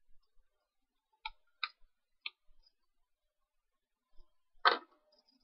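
A few faint clicks, then one sharper click about a second before the end: a small plastic eyeshadow palette and its brush being handled.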